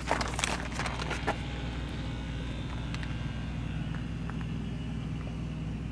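Steady low hum of an idling vehicle engine, with a few faint clicks in the first second or so.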